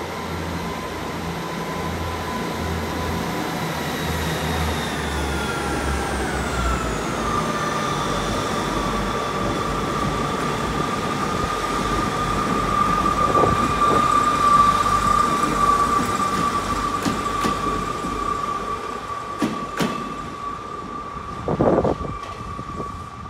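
Class 158 diesel multiple unit pulling away: a low diesel throb under a steady transmission whine that steps up in pitch about six or seven seconds in and then holds. Scattered clicks from the wheels follow in the second half.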